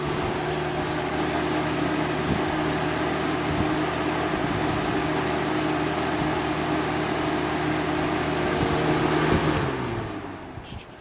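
2004 Haier 20-inch box fan with a 2.1 amp McMillan motor running: a steady motor hum under the rush of air from the blades. Near the end a click, then the hum sinks in pitch and fades as the fan slows down.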